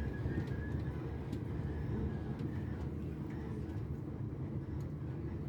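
Passenger train in motion, a steady low rumble with a few faint clicks.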